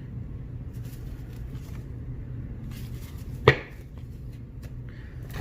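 Old baseball cards being handled and flicked through, faint soft ticks with one sharp snap of a card about three and a half seconds in, over a steady low hum.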